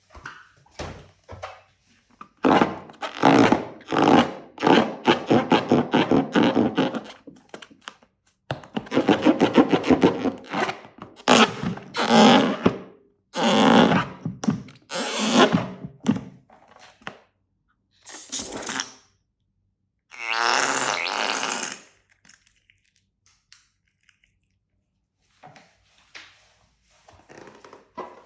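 Fluffy slime being squeezed, stretched and folded by hand: wet squelching with crackling air pops, in bursts of a few seconds separated by short pauses.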